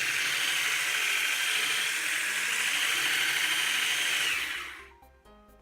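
Electric hand mixer running steadily, beating flour into cake batter. It is switched off about four and a half seconds in, leaving light background music.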